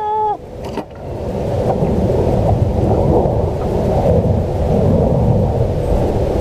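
Wind buffeting the camera's microphone: a loud, steady low rumble that builds up about a second in and holds.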